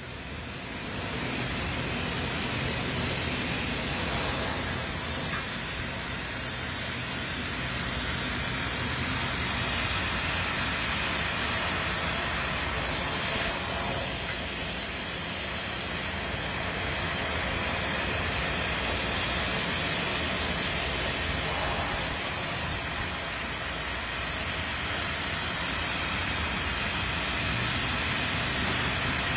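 Factory machinery running steadily with a continuous high hiss and a low hum underneath, swelling slightly now and then.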